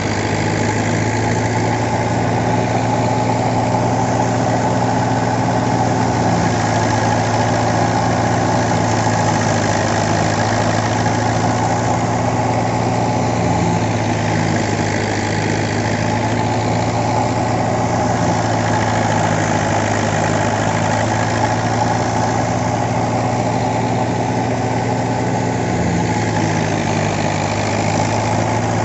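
Tractor engine running steadily at a constant speed as it drives a wheat thresher, with a steady low hum and no change in pitch.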